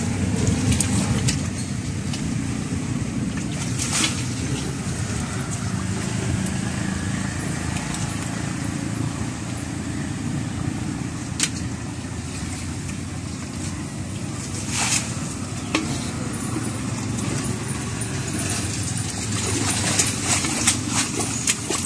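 Splashing of feet and hands wading through shallow muddy water, with a few short sharp splashes, most of them near the end, over a steady low rumble.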